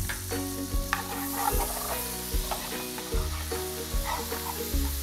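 Chopped shallots sizzling in hot butter and oil in a frying pan as a metal spoon stirs them, with the spoon clicking against the pan now and then. This is the shallots sautéing in the steak's pan drippings, the first stage of a peppercorn sauce.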